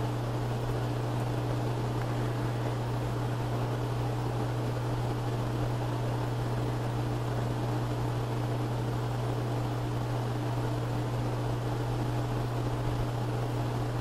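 A steady low machine hum with an even hiss over it, unchanging, with no knocks or rhythmic sounds.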